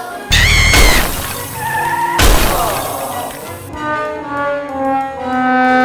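Two loud crash-and-shatter sound effects about two seconds apart, each with a ringing tail, followed by music with held notes.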